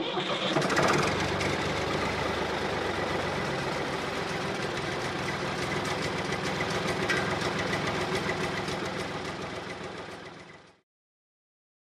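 Tractor engine running steadily, then fading away near the end.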